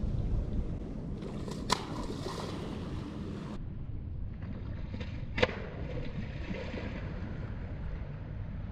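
Steady low rumble of water and wind around a kayak, with two short sharp clicks or knocks, one about two seconds in and another about five and a half seconds in.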